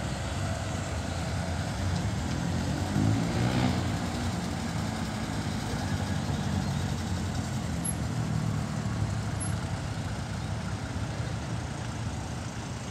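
Classic cars driving past one after another in a slow procession, engines running at low speed. About three seconds in, one car's engine note swells as it passes close by.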